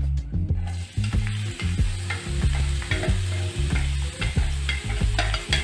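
Diced onion hitting hot olive oil in a nonstick frying pan, sizzling from about a second in, with a few light knocks as it is pushed off the plate.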